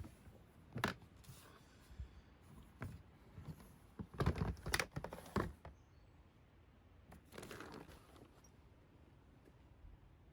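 Irregular knocks and rustling from objects being handled, densest about four to five seconds in.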